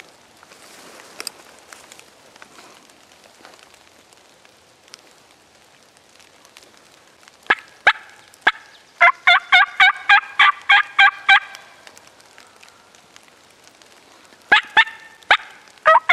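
Wild turkey hen clucks and yelps made on a mouth-blown turkey call: three sharp clucks, then a run of about ten evenly spaced yelps at about four a second, then three more clucks and another run of yelps starting near the end.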